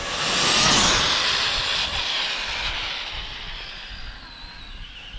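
ARRMA Limitless RC speed-run car's brushless electric motor whining and its tyres rushing on asphalt as it passes at high speed. It is loudest about a second in, then the whine drops in pitch and fades as the car speeds away.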